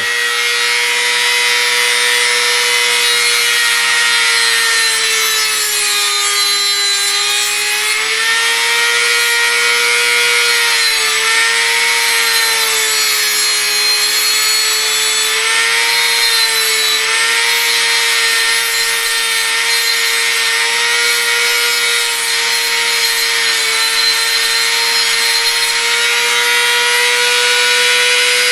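Dremel rotary tool with a cutoff wheel cutting a carbon-steel hacksaw-blade blank: a steady high motor whine over a grinding hiss. The pitch sags as the wheel is pressed into the steel, most deeply about six seconds in, and wavers several times after as small cuts are taken.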